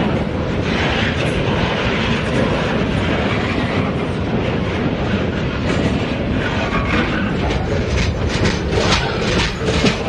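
Freight train cars rolling past close by: a steady rumble of steel wheels on rail with a rapid clickety-clack over the rail joints, the clacking sharpest and thickest from about six to nine seconds in.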